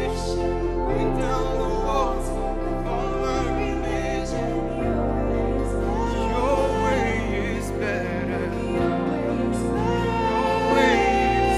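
Live worship band playing slow, soft music. A singer holds long, wavering notes over sustained keyboard chords and bass, and the chords change about five and nine seconds in.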